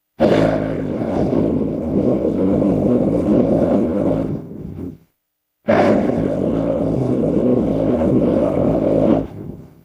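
Two long, deep monster roars from a custom creature sound effect layered from dinosaur and animal roars, each lasting several seconds and tailing off, with a short silence between them.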